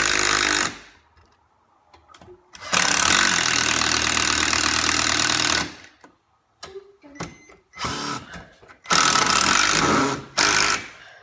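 Craftsman cordless impact driver hammering long wood screws into the framing. It ends a burst just after the start, runs again for about three seconds after a pause, and gives three shorter bursts near the end as the screws are seated.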